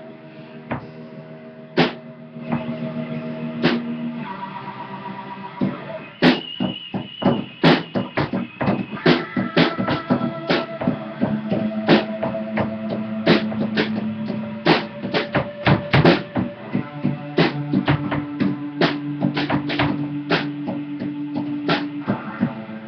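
Loose basement jam of an amplified electric guitar and a drum kit: held guitar notes with only a few drum hits at first, then the drums come in with frequent hits from about six seconds in.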